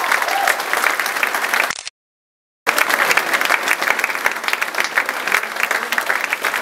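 Audience applauding, a dense patter of many hands clapping. The sound cuts out completely for under a second about two seconds in, then the applause carries on.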